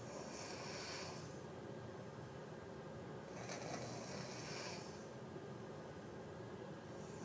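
Sleepers snoring, with a breathy hiss swelling and fading about every three and a half seconds: two full breaths and the start of a third near the end.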